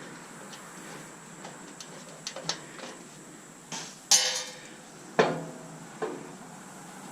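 Metal parts of a stainless steel coffee maker clinking and clanking as it is taken apart. There are a few light clicks, then a loud rattling clatter about four seconds in, and then two sharp clanks that ring briefly.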